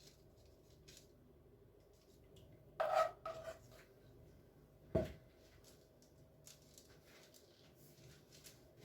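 Quiet scrapes and light taps of a kitchen utensil as thick honey-ginger caramel is portioned into small pieces, with two louder taps about three and five seconds in.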